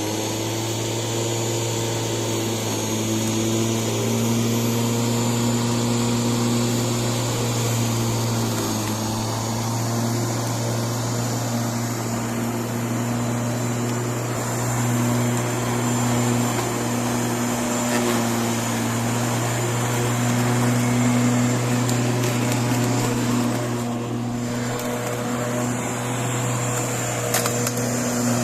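Bosch corded electric garden tool's motor running steadily after being switched on: a constant electric motor whine with a low hum and a few steady tones above it, no changes in speed.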